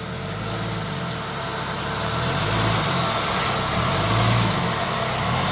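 Jeep Cherokee XJ engine revving under throttle as the lifted Jeep climbs a steep dirt bank. The revs rise and fall, and it is loudest about four seconds in.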